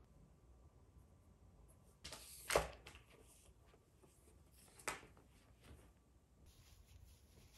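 Faint handling of a pen and paper notebook in a quiet room: a short rustle about two seconds in that ends in a sharp tap, and a second tap a couple of seconds later.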